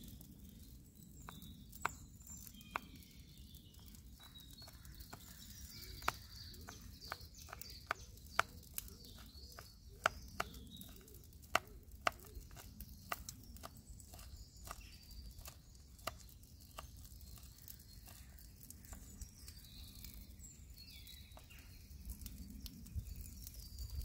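Kitchen knife chopping garlic: a run of sharp, irregular taps at one or two a second, thickest in the middle, that thin out later on.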